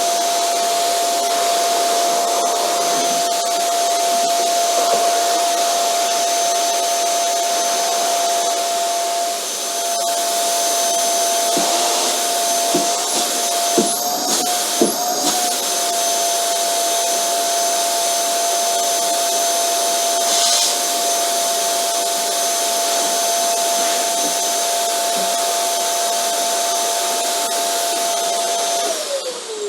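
Vacuum cleaner running steadily: an airflow hiss with a steady motor whine, a few light knocks around the middle, and the whine falling in pitch at the very end.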